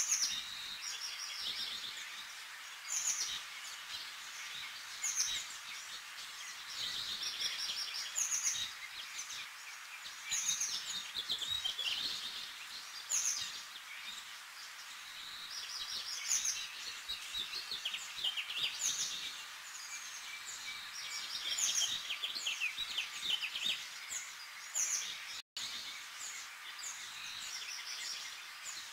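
Many small birds chirping and trilling continuously over a steady hiss, with the sound dropping out for an instant about 25 seconds in.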